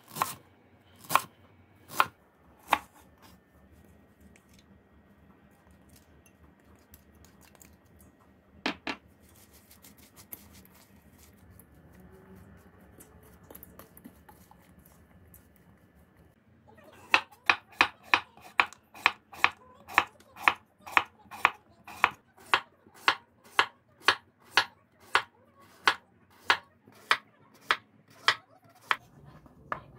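A kitchen knife striking a wooden cutting board: a few knocks cutting a bunch of chives, then a long, steady run of quick chopping strikes, about two to three a second, as a raw potato is sliced thin. In the quieter stretch between, faint stirring of the seasoned chives in a steel bowl with a wooden spoon.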